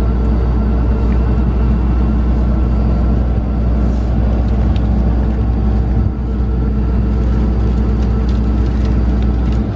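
Combine's diesel engine running steadily at a loud, even drone, dropping off sharply at the very end.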